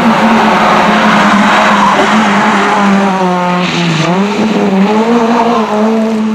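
Rally car engine running at high revs as the car passes. About three and a half seconds in the revs drop sharply, with a brief burst of tyre noise as it brakes into the bend, then they climb again as it accelerates away.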